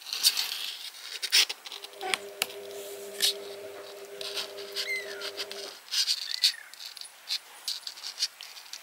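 Month-old kittens scrabbling and scratching with their claws on a cardboard box and its blanket lining, a run of short scratchy clicks and rustles. A steady hum sounds from about two seconds in to nearly six seconds.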